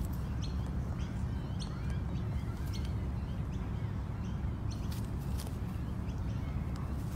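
Birds chirping in short, high notes scattered throughout, over a steady low rumble, with a few sharp clicks.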